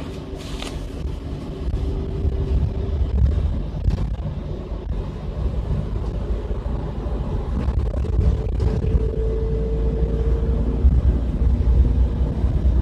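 Bus engine and road rumble heard from inside the passenger cabin: a steady low drone with a faint whine and a few light knocks.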